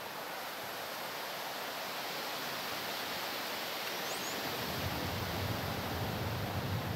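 Steady outdoor wind noise: a hiss of wind through trees, with low wind rumble on the microphone coming in about two-thirds of the way through. A single short, faint high chirp sounds just past the middle.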